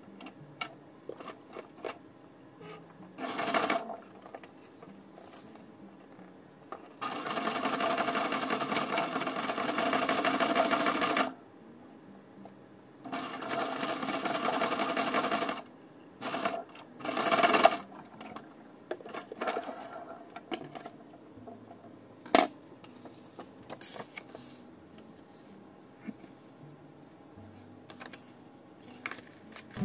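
Electric sewing machine stitching through layered paper in runs: a short burst about three seconds in, a long run of about four seconds, another of about two and a half seconds, then two brief bursts. Quiet paper handling follows, with one sharp click.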